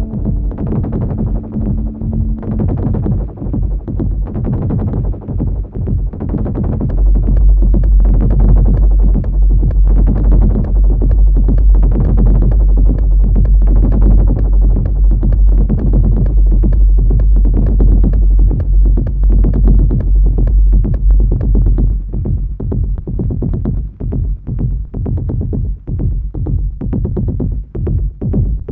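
Live improvised techno played on hardware synthesizers and a sampler (Yamaha Reface CS, Korg Volca Keys and Volca Bass, Korg Electribe sampler): a fast, steady beat. A heavy, deep bass line comes in about seven seconds in and drops back about two-thirds of the way through as knobs are turned.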